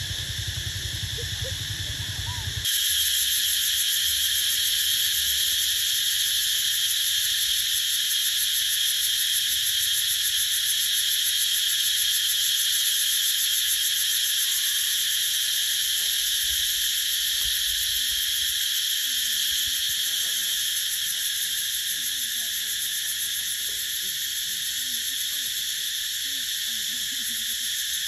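A steady, high-pitched drone of an insect chorus, such as cicadas or crickets, that steps up in loudness a few seconds in.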